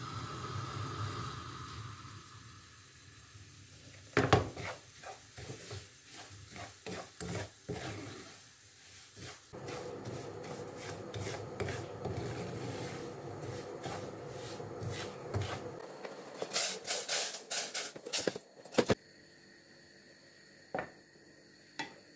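Wooden spoon stirring and scraping coarse semolina as it toasts in a non-stick frying pan, with light taps of the spoon against the pan. A run of louder knocks and clatter comes about three-quarters of the way through.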